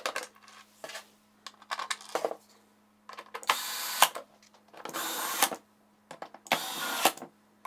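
Cordless electric screwdriver driving screws into a plastic enclosure in three short runs of about a second each. Before that come light clicks of screws being set into their holes by hand.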